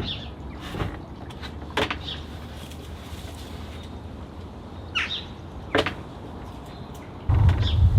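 A few sharp knocks and clunks, a second or more apart, with short bird chirps in the background. A loud low rumble comes in near the end.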